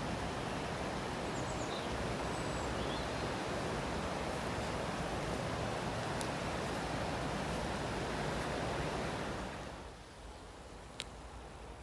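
Steady rush of flowing river water that drops away sharply about ten seconds in, followed by a single sharp click near the end.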